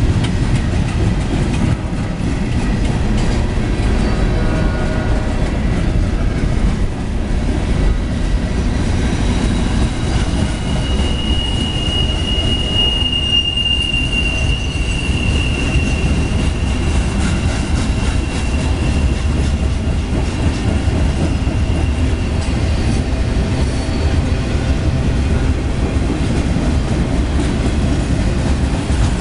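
Freight cars of a CSX mixed freight train rolling past with a steady low rumble of steel wheels on rail. A single high, steady wheel squeal starts about a third of the way in, peaks just before the middle and fades out.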